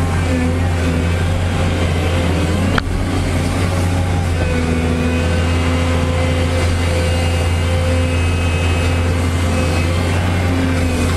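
Excavator's diesel engine running steadily under load with a deep, even hum, and a single sharp click about three seconds in.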